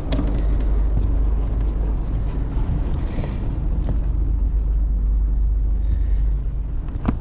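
Steady low rumble of wind on the microphone, with a brief hiss about three seconds in.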